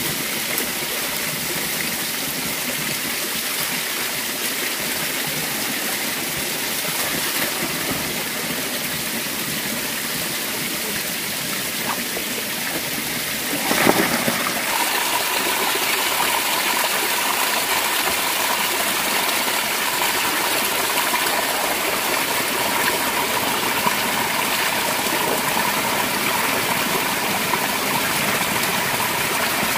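Steady rush of running water. About halfway through there is a short bump, after which the rush is a little louder.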